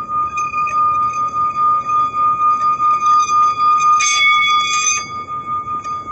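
Small metal singing bowl sung by rubbing a wooden mallet around its rim: one steady ringing tone with fainter overtones, pulsing quickly and evenly as the mallet circles. About four seconds in, a brief scratchy noise rides on top for around a second.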